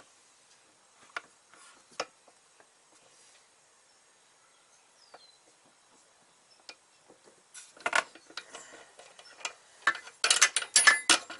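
Metal clicks and rattles of a brake hard line and a hand tube bender being worked by hand. A few light scattered clicks come first, then a burst of clattering about eight seconds in, and louder, denser rattling near the end.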